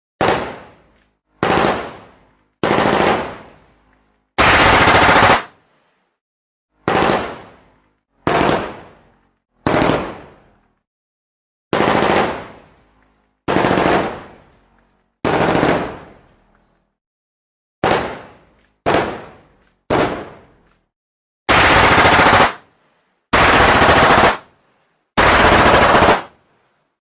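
Automatic gunfire in about sixteen separate bursts, some short and some lasting about a second, with brief silences between them and a fading echo after several bursts.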